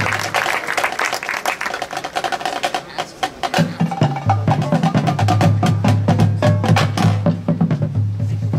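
High school marching band playing, led by its percussion section: rapid, dense drum and wood-block-like strikes over a sustained low bass note that drops out for a few seconds and comes back about three and a half seconds in.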